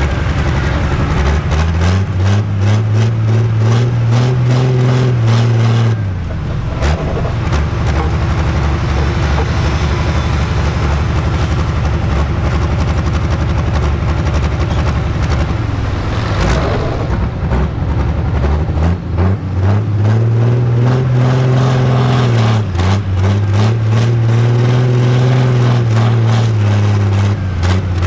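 Pro stock pulling tractor's diesel engine heard from on board, running at low speed and revved up and back down three times: once about two seconds in and twice in quick succession near the end.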